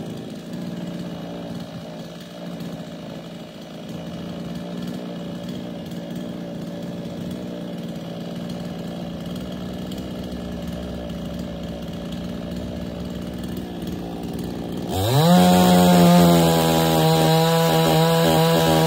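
Gas chainsaw running steadily at a log. About fifteen seconds in, the engine revs up sharply and holds at high speed, much louder.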